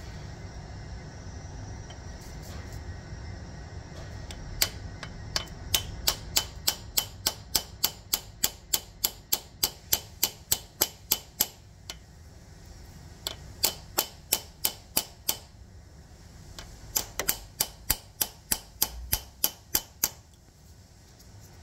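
Hammer tapping a drift to drive a new pilot needle bearing into the crankshaft bore of a VW CFFB 2.0 TDI engine. Sharp metal taps, about three a second, in three runs with short pauses between them.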